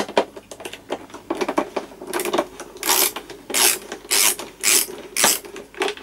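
Ratcheting screwdriver backing a screw out of a Dyson vacuum cleaner's plastic housing. Fine rapid clicking at first, then from about two seconds in a run of louder ratchet strokes, roughly one every half-second.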